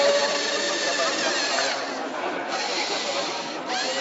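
Small geared electric motors of a LEGO robot whining as it drives and turns, the pitch sliding up and down, over a steady haze of hall noise.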